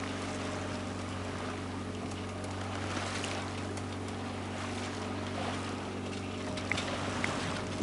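A sailboat's inboard auxiliary engine running steadily with a low, even hum, under a constant hiss of water and wind. A few light ticks near the end.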